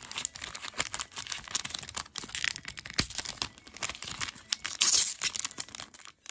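Foil trading-card booster pack crinkling in the hands and being torn open: a dense run of irregular crackles, loudest about five seconds in.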